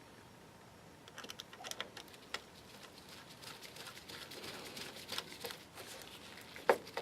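Quiet handling noise of small parts: scattered light clicks and scrapes as a screw and small washer are worked on the case of a retractable key-chain reel, with one sharper click near the end.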